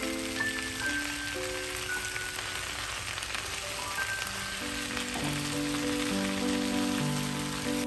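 Slow music of held notes over a steady crackling hiss; the hiss cuts off suddenly at the end.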